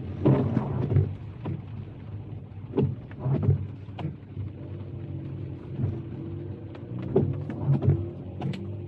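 A car driving on a wet road in the rain, heard from inside: a steady low road rumble with irregular sharp knocks and taps.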